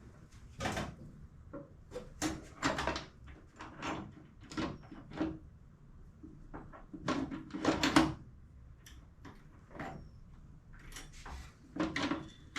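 Irregular metallic clanks and knocks of tools and steel suspension parts being handled and fitted, some with a short ring.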